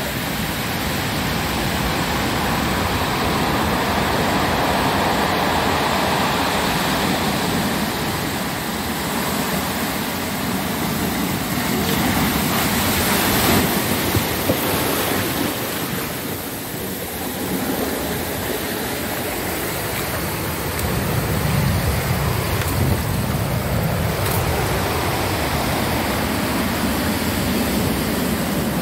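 Heavy storm surf breaking against a seawall and washing over a flooded patio: a continuous rush of crashing, foaming water that swells and eases as the waves hit, loudest about halfway through and again a few seconds later.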